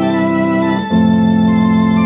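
Philips Philicorda 22GM755 transistor organ with valve amplification, holding sustained chords. About a second in it moves to a new, louder chord. It is played with vibrato and its valve spring reverb.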